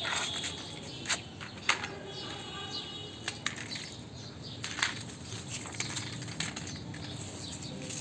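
Plastic toy cars and a toy excavator being pushed and knocked about on a concrete floor: irregular sharp clicks and clacks over a light scraping rustle.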